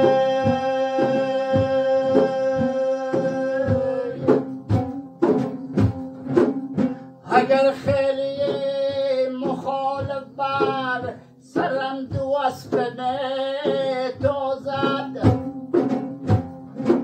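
Pamiri madoh devotional song: a long held note over steady hand-drum beats, then a male voice comes in about seven seconds in, singing a wavering melody as the drum keeps time.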